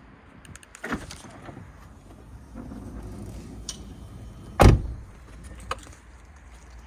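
A Chrysler Pacifica minivan's door shuts with a knock about a second in. Then the power sliding door hums open and stops with a loud thump about two-thirds of the way through.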